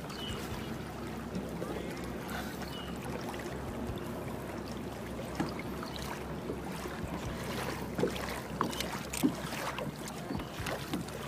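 Sounds aboard a fishing kayak on the water: small water splashes and light knocks against the hull, scattered and more frequent in the second half, over a steady low hum.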